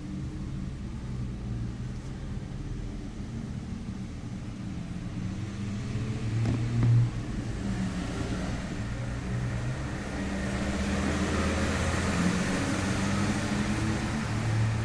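Low, steady vehicle engine rumble that grows louder in the second half, with a short louder bump about seven seconds in.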